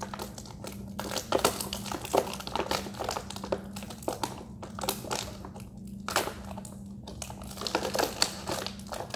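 Plastic blister packaging of a Shopkins 12-pack crinkling and crackling as the small toy figures are popped out of it, in an irregular run of crackles.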